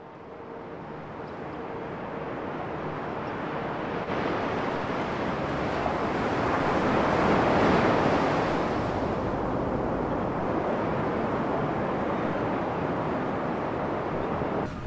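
Seaside ambience of wind and surf: a steady rushing noise that builds up, is loudest about eight seconds in, then eases a little and holds steady.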